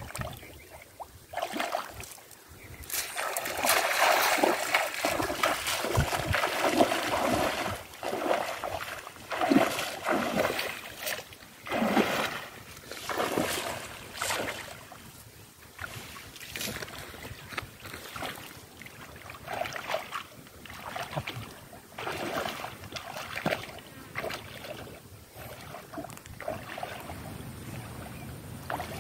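Shallow pond water sloshing and splashing in irregular surges as a man wades through it and works a cast net, throwing it and hauling it back in.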